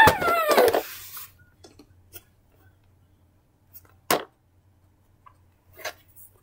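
A child's short falling cry at the very start, then a large plastic toy car being handled and turned over, giving scattered plastic clicks and knocks, the sharpest about four seconds in.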